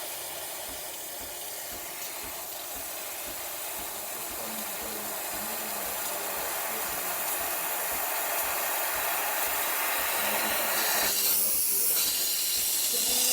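Breville Barista espresso machine's steam wand hissing as steam pressure builds, growing gradually louder, with a stronger burst of steam about eleven seconds in.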